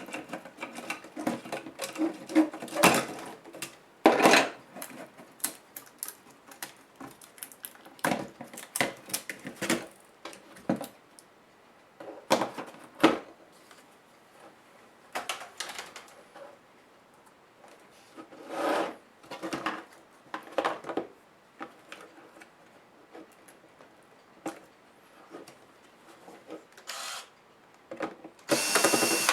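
Hands taking apart an HP DV8000 laptop: irregular clicks and knocks of plastic casing and small parts being handled, with short scraping and rubbing sounds and a louder scrape near the end.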